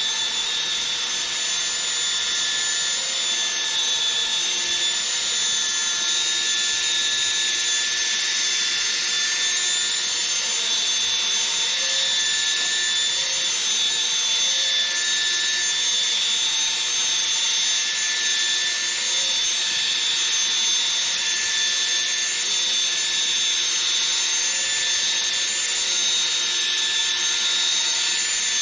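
Cordless drill running steadily at constant speed, spinning a sandpaper pad against a plastic headlight lens: a motor whine with a gritty rubbing.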